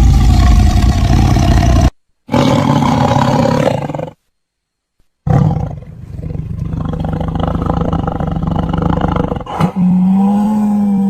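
Tiger roaring and growling in several separate takes cut hard together, with about a second of silence in the middle. Near the end comes one long, steady-pitched call.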